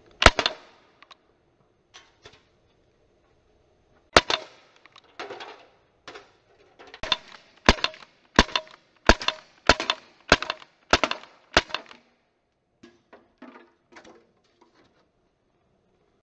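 CO2-powered Umarex Beretta PX4 Storm .177 air pistol firing: two single shots about four seconds apart, then a quick string of eight shots about two thirds of a second apart. Fainter ticks and knocks fall between the shots and after the string.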